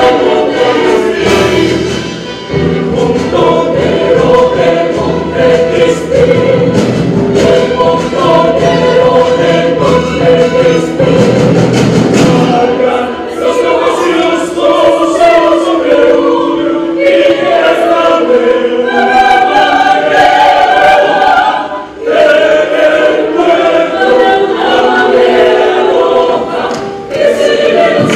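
An opera chorus of many mixed voices singing loudly together with instrumental accompaniment; the deep low part of the accompaniment drops away about halfway through, leaving the voices over lighter backing.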